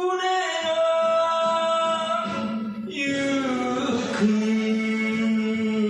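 Enka song music with long held notes. The melody falls to a lower held note about four seconds in, which starts to waver near the end.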